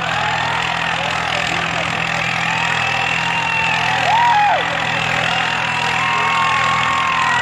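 Swaraj 855 tractor's diesel engine running steadily while the tractor balances on its rear wheels in a wheelie stunt. Long tones that rise, hold and fall sound over the engine, loudest about four seconds in.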